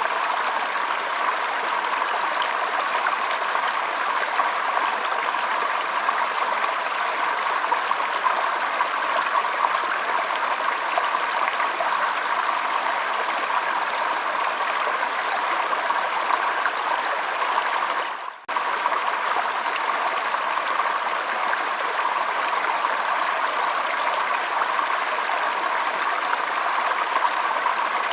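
Water flowing steadily, an even rushing noise with no pauses. About two-thirds of the way in, it drops out for a split second.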